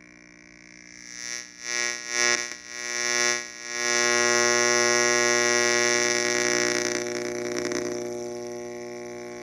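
Buzzing electronic hum from a homemade transistor antenna circuit played through a loudspeaker. It swells in three or four surges about a second in, holds loud for a few seconds, then slowly fades near the end.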